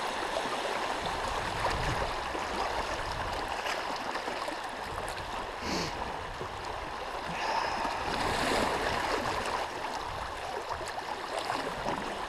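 River current flowing, a steady rush of moving water.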